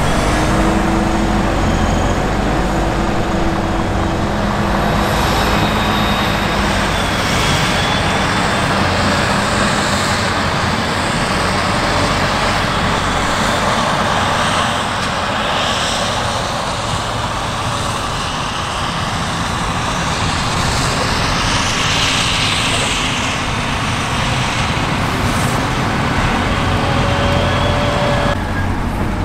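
Claas Jaguar self-propelled forage harvester running under load and chopping maize, with the diesel engines of the silage truck alongside. It is a loud, steady machinery noise. The sound changes abruptly near the end.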